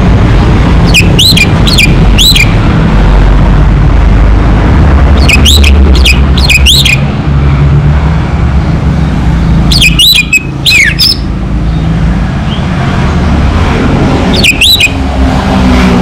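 Orange-headed thrush calling in four short bursts of quick, high, sweeping notes, over a loud steady low rumble.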